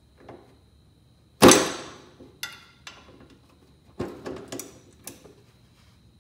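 Socket wrench and extension working the exhaust header flange nuts on a small go-kart engine. One loud metallic clank about a second and a half in rings as it fades, followed by a short ringing clink and, near the end, a quick run of tool clicks.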